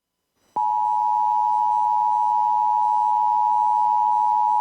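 Emergency Alert System attention signal: two steady tones sounding together as one continuous harsh beep, starting about half a second in. It announces an emergency alert, here a severe thunderstorm warning.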